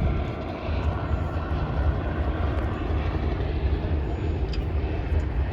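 Aircraft engine drone, a steady low rumble with a few faint ticks over it.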